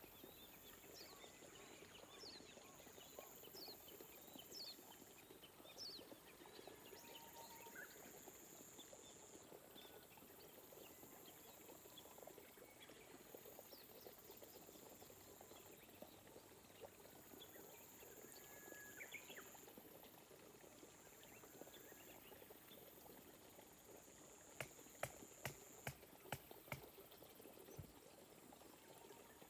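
Gentle rain pattering faintly, with scattered bird chirps. A high, thin buzz keeps switching on and off. A quick run of about six sharp clicks comes a little before the end.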